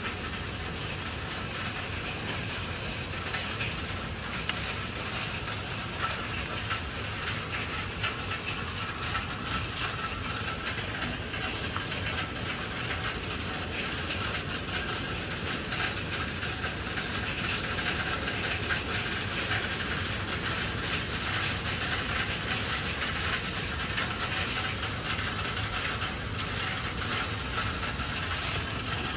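Hail pelting down in a thunderstorm: a loud, steady, clamorous rattle of countless small hailstones striking the balcony floor and railing, with one sharper, louder hit about four and a half seconds in.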